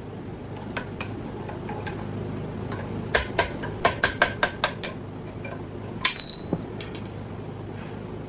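Hammer blows on a steel drift bar set against the end bell of a 50 hp three-phase electric motor's rotor: a quick run of about eight sharp metallic strikes, then a single clank with a ringing note just after six seconds. The end bell is being driven off the rotor shaft by hand because no puller big enough is at hand.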